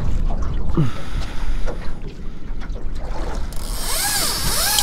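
Wind and water noise, then, about three and a half seconds in, the overhead reel in the rod holder starts to whine as line is pulled off it. The pitch rises and falls repeatedly: a fish taking the float-rigged pilchard bait.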